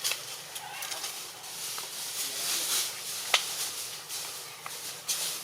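Outdoor ambience: a steady high hiss with scattered small clicks, and one sharp click a little past the middle.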